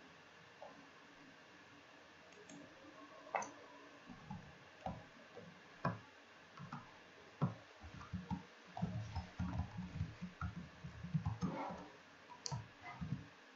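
Typing on a computer keyboard: irregular light keystroke clicks, a few at first, then a dense run of typing in the second half.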